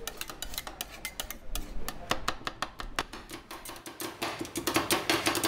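Metal spatulas chopping and scraping ice cream mix on a frozen steel cold plate: an irregular run of sharp metallic clacks, several a second, as the toppings are worked into the base.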